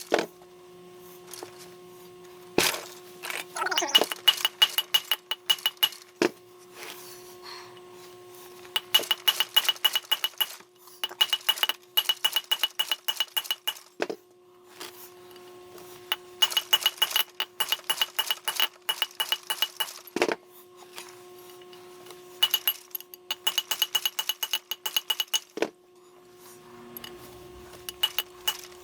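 Hammer rapidly tapping a punch to drive a valve guide out of a cast-iron diesel cylinder head: several bursts of quick metallic taps with a ringing tone, broken by a few single heavier blows.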